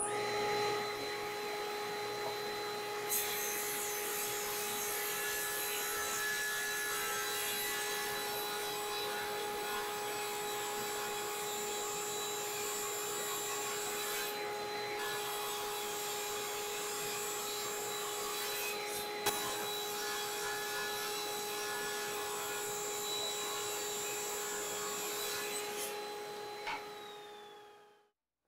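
Laguna table saw running with a steady hum, ripping a walnut board fed with a push block. The cutting noise starts about three seconds in and runs until near the end.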